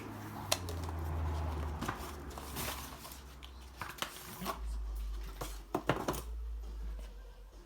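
Car parts and their packaging being handled: a series of sharp clicks and knocks with light rustling in between.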